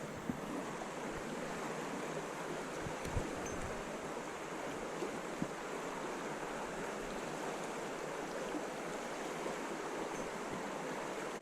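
Steady rush of a fast-flowing river, with a few faint clicks.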